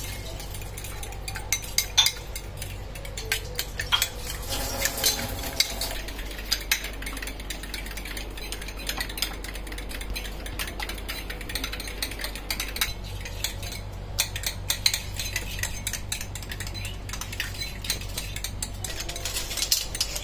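Two metal forks beating raw eggs in ceramic bowls: a quick, uneven clatter of tines tapping and scraping against the bowls.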